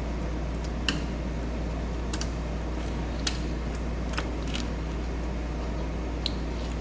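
Serpentine belt and belt-tensioner tool being worked by hand, feeding the belt over a pulley: about six scattered sharp clicks and small knocks of metal and rubber over a steady low hum.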